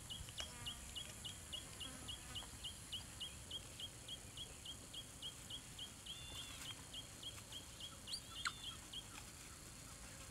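A bird calling the same short high note over and over, about three or four a second, with a couple of longer arched notes mixed in, stopping about nine seconds in. Faint, over low outdoor background noise.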